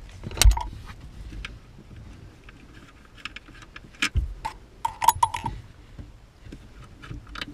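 Scattered metallic clicks and small rattles of a hand tool and loosened bolts being handled under a car's dashboard, with a sharp knock about half a second in and another about four seconds in.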